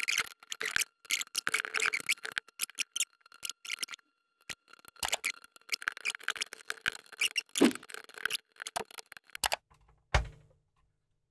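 Hands handling the plastic case and chassis of a 1970s Grundig Sono Clock 350 clock radio: irregular clicks, rattles and scrapes of plastic parts, pausing briefly partway through, with a thump about ten seconds in.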